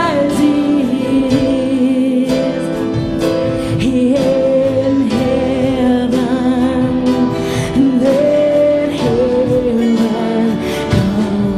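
Live worship band playing a slow song: a singer holds long notes with vibrato over keyboard, with drum and cymbal hits.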